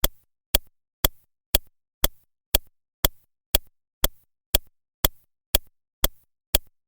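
Clock-style ticking sound effect: sharp, evenly spaced ticks about two a second. It serves as a countdown timer, giving time to answer a quiz question.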